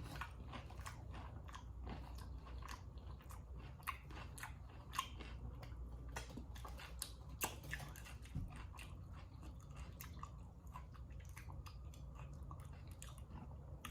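A person chewing food close to the microphone, faint, with many small irregular mouth clicks.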